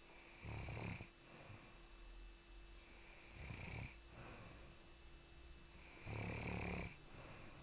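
Snoring: three loud snores at a slow even pace, about one every three seconds, with quieter breathing between them.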